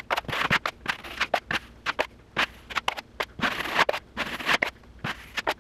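Taping knife spreading a thin, watered-down coat of joint compound across a drywall ceiling: irregular scraping and smearing strokes.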